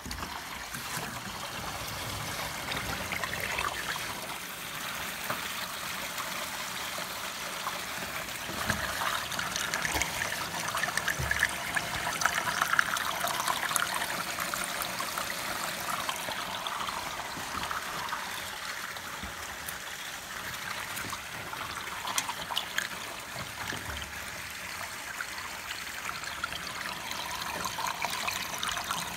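Water running out of a rain-gutter downspout as it drains after a clog of pine needles is cleared: a steady trickling flow, somewhat louder in the middle.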